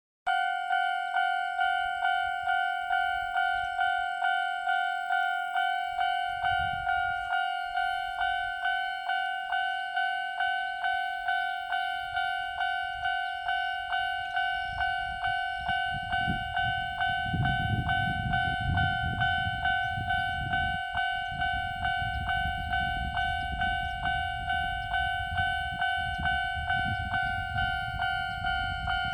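Japanese level-crossing alarm in the older standard electronic tone, ringing steadily at about two strikes a second. In the second half a train's low rumble builds up under it as the train approaches and passes.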